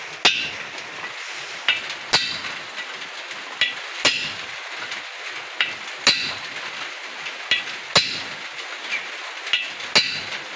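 Hammer blows on a steel chisel held against the outer race of a 6207 ball bearing, driving the bearing into a power tiller's rotary shaft housing. Sharp metallic strikes about every two seconds, each a lighter tap followed by a heavier blow.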